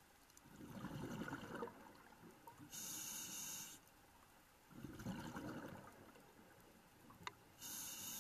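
Scuba diver breathing through a regulator underwater: two bubbly exhalations of about a second and a half each, alternating with shorter hissing inhalations, roughly five seconds to a full breath. A single sharp click comes just before the last inhalation starts.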